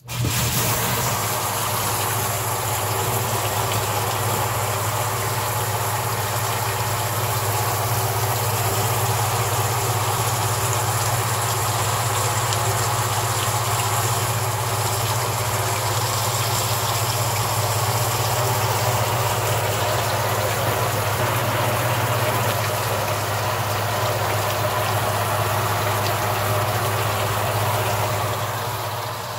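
A 1/4 HP Barracuda utility pump driving a homemade bottle washer: a steady motor hum under the hiss of water jetting from the PVC manifold's pen-tube nozzles and spattering against the tote's clear plastic lid. It starts suddenly and eases slightly near the end. This is a bottle-less test run after clearing clogged nozzles.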